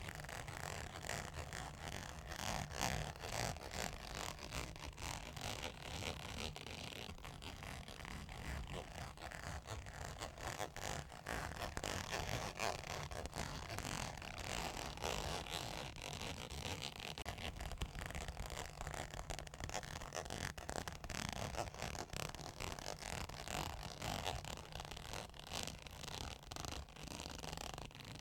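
Close-miked ASMR scratching and tapping on a surface: a continuous run of quick, fine, scratchy strokes.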